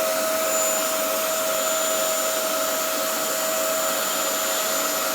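Vacuum cleaner running steadily, its motor giving an even whine.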